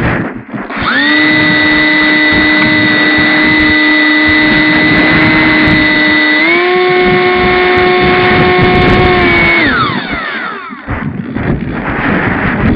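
Multiplex EasyStar's brushless motor and pusher propeller on a 6S pack, heard through the onboard camera's microphone. It comes in about a second in as a steady high whine, steps up in pitch a little past halfway, then cuts off and winds down near the end. Wind rushes over the microphone before and after.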